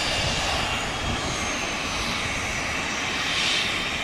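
Small twin-engine business jet's turbofan engines running as it taxis: a steady high whine over a rush of engine noise, swelling slightly near the end.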